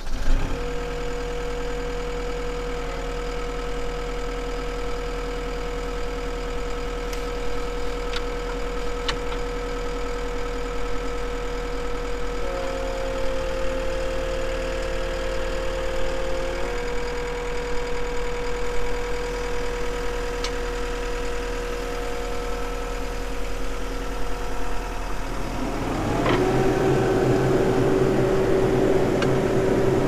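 Cat 265 compact track loader's diesel engine running steadily, with its note stepping up for about four seconds midway as the loader arms are raised. Near the end the sound grows louder, with a new steady hydraulic whine, as the arms are lowered past the pivoting safety brace.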